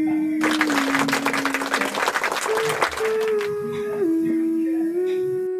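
Background music of slow held notes stepping from one pitch to the next. Clapping applause comes in about half a second in and lasts about three seconds.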